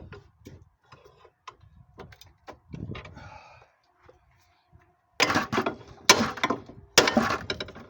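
Metal clanking and scraping as the lower ball joint of a 2011 Ford Focus is worked out of the steering knuckle. Light scattered knocks come first, then three louder clanking scrapes in the last few seconds.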